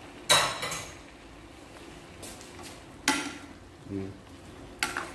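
A metal spoon clanking against the cooking pan while stirring pork adobo in its sauce: three sharp knocks, the loudest about a third of a second in, another about three seconds in and a last one near the end.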